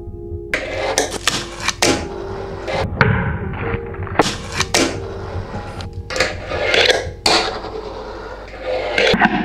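Fingerboard tricks on wooden ramps and a wooden tabletop: a quick string of sharp clacks and taps as the small deck pops, flips and lands, with the little wheels rolling on the wood in between. Soft piano music runs underneath.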